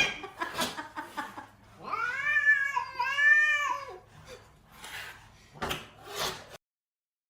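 A cat yowling: one long, drawn-out meow of about two seconds, with short noisy sounds before and after it. The sound cuts off abruptly near the end.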